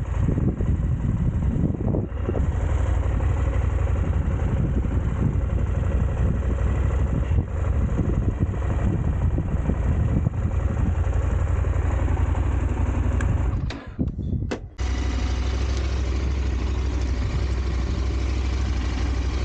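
Motorcycle engine running under way, a dense low rumble. About fourteen seconds in the sound drops away for about a second, then the engine runs on evenly.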